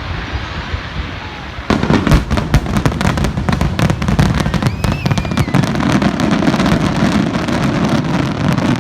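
Fireworks going off. Against a steady rumble, about two seconds in a dense crackle of many rapid pops and bangs breaks out and keeps going.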